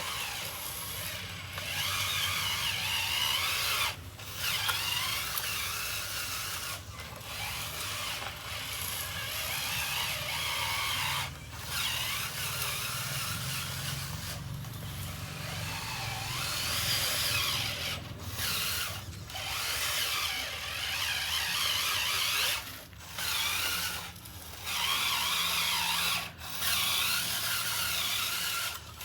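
Small electric motors and gearboxes of radio-controlled construction models whining as they run, the pitch rising and falling with the load. The whine cuts out briefly and restarts about a dozen times as the controls are released and pressed again.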